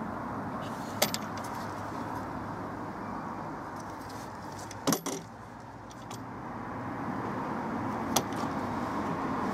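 Steel bars and bolts of a homemade chainsaw milling attachment clinking as it is handled and fitted onto the chainsaw bar, with three sharp metallic knocks about a second, five seconds and eight seconds in, over a steady background hum.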